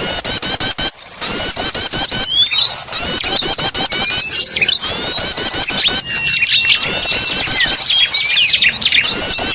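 Small-bird lure recording: a dense, noisy mix of many small birds' rapid high chirps and calls, repeating without pause, with a thin held whistle heard twice, around the middle and near the end.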